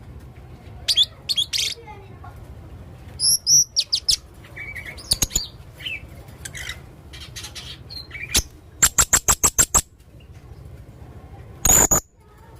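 Male blue-crowned hanging parrot (serindit) calling in a varied mix of high chirps and squeaks. About nine seconds in comes a fast run of around eight sharp calls, and a loud shrill call follows near the end, over a low steady hum.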